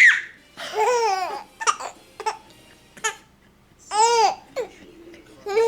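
A baby making loud, high-pitched vocal noises in imitation, about five calls in a row, each rising and falling in pitch, with short pauses between.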